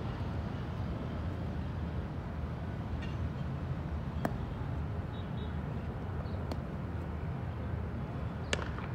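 Cricket bat striking the ball in practice nets: three sharp cracks a couple of seconds apart, the last and loudest near the end, over a steady low outdoor rumble.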